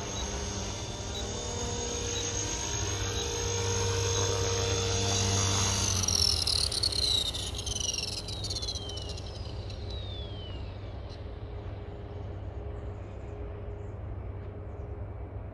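Radio-controlled model helicopter's motor and rotor running with a steady whine, then winding down with a falling whine about six seconds in that fades away over the next few seconds.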